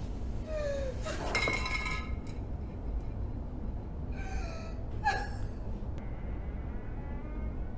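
A woman's distressed gasps and whimpers in two short bursts, about a second in and again about four seconds in, over a low steady hum.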